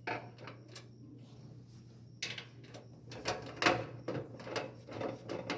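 Screwdriver driving a mounting screw into a computer case's metal drive bay to secure a combo drive: irregular small clicks and scrapes of metal, busiest from about two seconds in.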